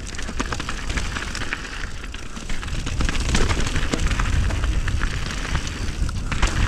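Mountain bike descending a loose gravel and dirt trail at speed: tyres crunching over stones, with many small clicks and rattles from rocks and the bike, over a steady low rumble of wind on the microphone.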